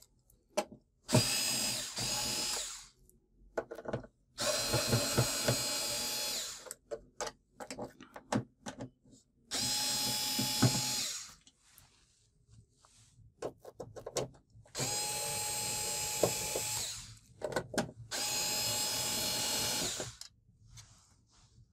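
Cordless drill-driver running in five short runs of one and a half to two and a half seconds, backing screws out of the plastic back of an LED TV. Short clicks and rattles of handling come between the runs.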